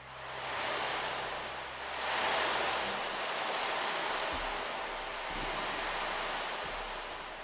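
A rushing, surf-like noise that swells and ebbs in slow waves every couple of seconds. A low steady hum underneath stops about three seconds in.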